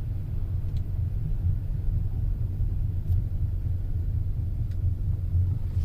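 Steady low rumble of the 2005 Nissan Armada's 5.6-litre V8 running evenly, after the cylinder 8 misfire has been repaired and no fault codes remain.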